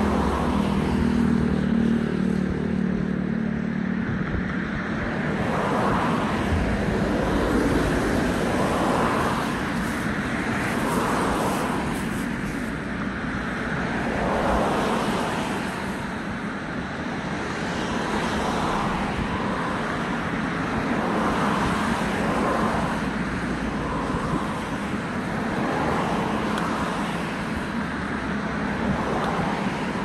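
Road traffic: cars passing one after another, a steady wash of engine and tyre noise that swells and fades every second or two. A low engine hum underneath fades out about four seconds in.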